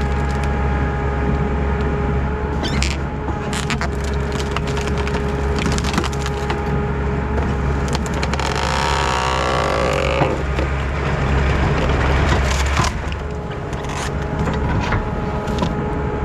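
Compact track loader's diesel engine running steadily while a hydraulic tree shear crushes through a tree trunk, with repeated sharp cracks and splintering wood.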